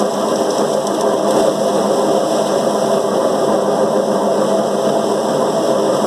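Paddy thresher running steadily as bundles of rice stalks are held against its spinning drum to strip off the grain.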